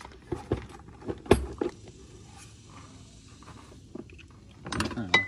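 Scattered clicks and knocks of a metal hose clamp and tools being handled while the clamp is refitted over the rubber intake boot on the carburetor. The loudest knock comes about a second in, and another cluster of handling noises comes near the end.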